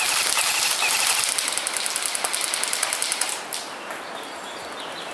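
Airsoft electric gun firing a long fully automatic burst, a fast even rattle of shots that stops suddenly about three and a half seconds in.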